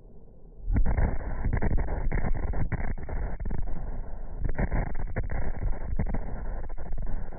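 Large pyrotechnic explosion on a film set: a sudden loud blast about three-quarters of a second in, followed by continuous deep rumbling with irregular surges.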